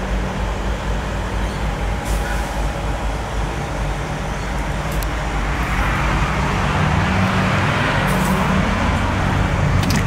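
Steady road traffic noise, growing louder about six seconds in as a vehicle passes close by.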